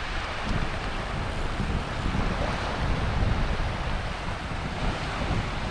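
Small waves washing in over a shallow sandy beach, with wind buffeting the microphone in a low rumble.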